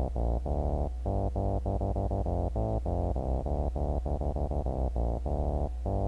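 Synthesizer bass line playing alone in a reggae-style eurodance pattern: short, detached notes mixed with quick groups of sixteenth notes, built on D and then on G within D minor.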